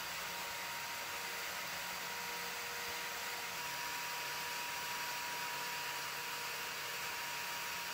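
Wire wheel brush spinning in an electric drill, scrubbing rust off an old steel padlock shackle: a steady, even hiss of bristles on metal over a faint constant motor whine.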